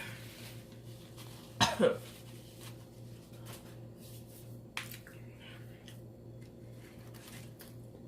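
A single short, loud burp about one and a half seconds in, over a steady low hum.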